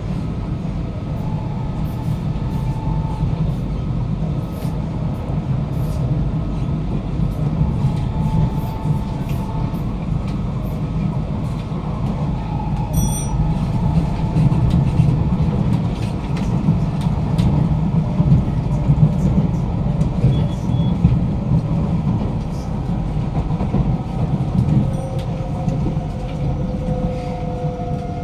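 Inside a Kawasaki–CRRC Sifang C151A metro train on the move: a steady low rumble of wheels and running gear, with a faint motor whine coming and going. Near the end, two tones fall in pitch.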